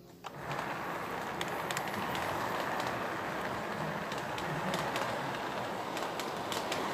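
Lionel toy freight train running on its track: a steady rolling rumble with scattered sharp clicks from the wheels and rail joints. It comes in suddenly a fraction of a second in.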